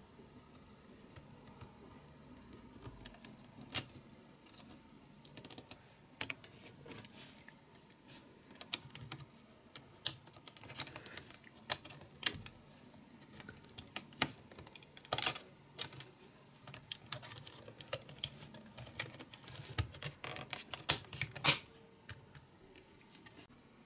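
Typing on a Poqet PC pocket computer's small keyboard: irregular key clicks, with a few sharper, louder keystrokes among them.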